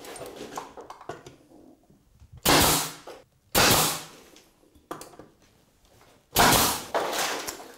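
Pneumatic brad nailer firing three times, nailing a strip of skirting board in place: two shots about a second apart, then a third some three seconds later. Each shot is a sudden bang trailing off in a short hiss.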